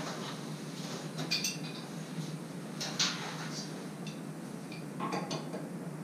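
Light metallic clinks and clanks in three short clusters about two seconds apart, the loudest about three seconds in, from hands working with metal fittings or tools at the top of a steam boiler. A steady low hum runs underneath.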